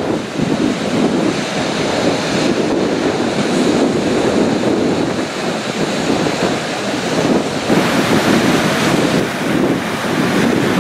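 Sea waves surging and breaking continuously, with wind buffeting the microphone. A hissier surge comes in near the end.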